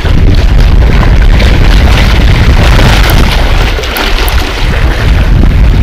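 Strong wind buffeting an action camera's microphone as a steady, loud low rumble, with sea waves washing against the rocks underneath it. The rumble eases slightly about four seconds in.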